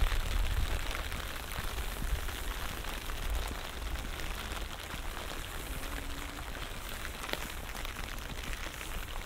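Light rain falling, with many small drop taps close by. A low rumble runs under it through the first few seconds.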